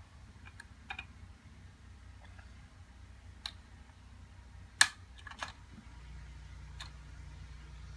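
Small plastic toy figures and playset pieces clicking and tapping as they are handled and set in place: a handful of scattered clicks, with one sharper knock about five seconds in.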